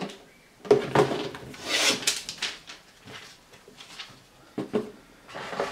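A cardboard shoe box being handled and set down on a desk: a few dull knocks, a scraping rub about two seconds in, and more knocks near the end.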